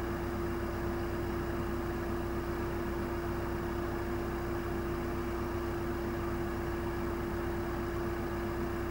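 Level crossing audible warning alarm sounding one steady, unbroken tone while the barriers are down, over a low rumble and hiss.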